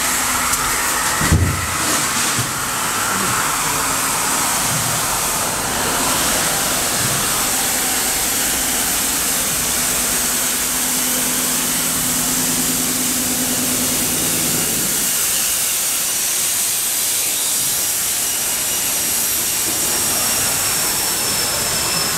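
Steady loud hiss of steam and factory machinery at a polystyrene foam plant, with a single thump about a second in and a thin high whistle that slowly falls in the second half.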